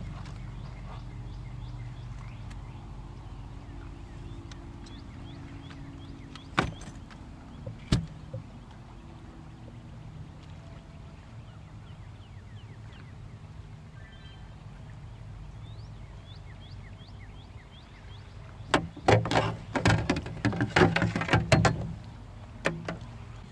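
A bass being landed at a fishing kayak: a dense burst of loud knocks and clattering from about 19 to 22 seconds in, over a low steady rumble, after two single sharp clicks earlier on.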